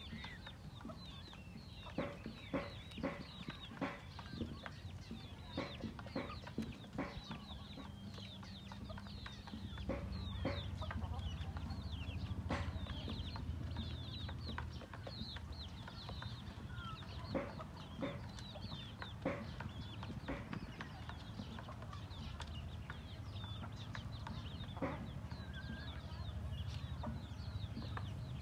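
A backyard flock of chickens clucking, with frequent high peeps from chicks and short sharp sounds scattered through. A low steady hum sits underneath and grows louder about ten seconds in.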